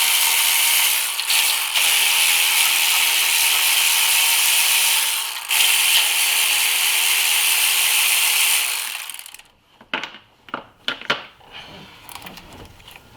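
Ratchet wrench clicking rapidly and continuously as a bolt is run out, stopping about nine seconds in, followed by a few separate clicks and knocks of tools and parts.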